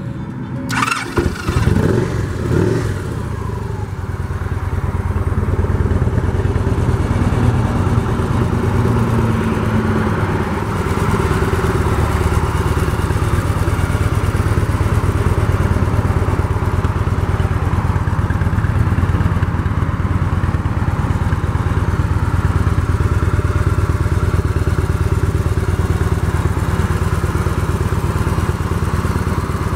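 2013 Victory Cross Country Tour's 106-cubic-inch V-twin engine running. It is uneven for the first few seconds, then settles into a steady idle.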